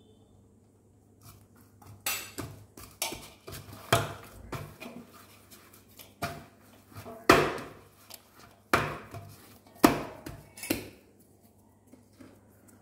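Hands kneading soft roti dough in a stainless steel plate, which knocks and clanks against the counter in an irregular run of metallic strikes, loudest around the middle.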